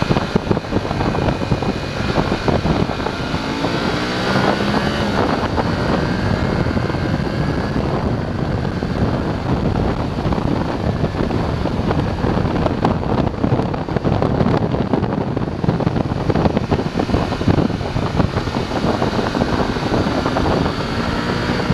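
BMW F850 GS parallel-twin engine running under way, mixed with heavy wind rush on the microphone; a few seconds in, its pitch swings up and down as the revs change.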